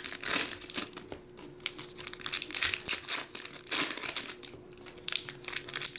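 Foil trading-card pack wrappers crinkling in irregular crackles as hands open the packs, with a faint steady hum underneath.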